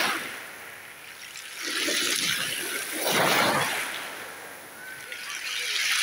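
Small sea waves lapping and splashing at the water's edge. There are two washes in the middle and another builds near the end, with a softer wash in between.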